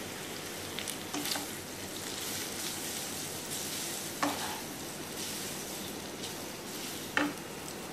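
Spaghetti noodles and stir-fried vegetables sizzling in a hot nonstick pan as they are tossed with a wooden spatula. The steady sizzle is broken by a few short knocks of the spatula against the pan, about 1, 4 and 7 seconds in.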